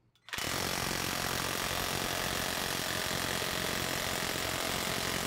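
Milwaukee M12 cordless palm nailer hammering rapid-fire against a steel anvil: a steady, fast buzz of blows that starts about a third of a second in and stops abruptly at the end.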